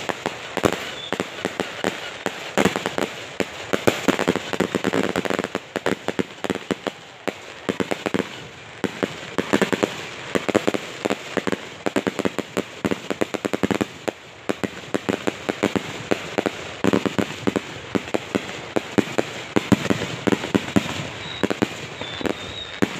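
A long string of firecrackers hanging from a traditional paper hot-air balloon going off high in the air: a dense, rapid crackle of bangs that comes in uneven louder runs.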